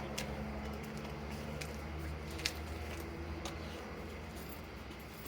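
A few light clicks and knocks from a cordless drill being handled, over a low steady hum.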